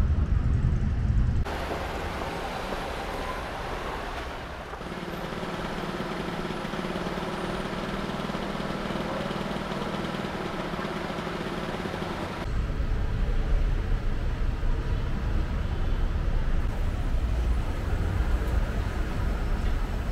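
City street ambience with a steady rumble of road traffic, changing abruptly a few times as the shots cut.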